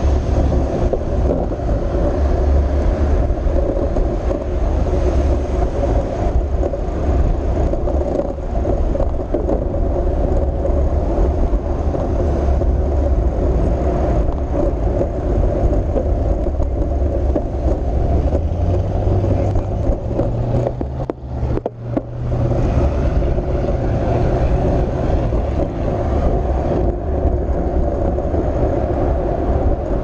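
Steady low rumble of wind buffeting and road noise picked up by a GoPro on a moving bicycle, with car traffic alongside. It drops out briefly about two-thirds of the way through.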